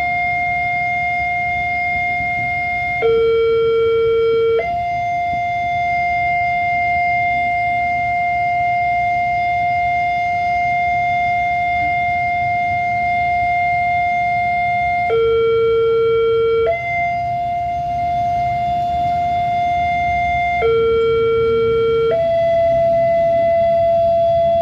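Railway level-crossing warning siren holding one steady high tone, which drops to a lower tone three times for about a second and a half each. The irregular pattern is what the uploader calls an error: a malfunctioning crossing siren.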